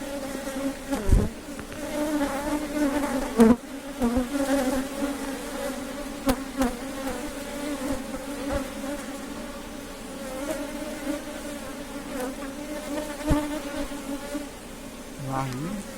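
Honey bees buzzing around an open hive, a steady hum that wavers slightly, with a few sharp knocks.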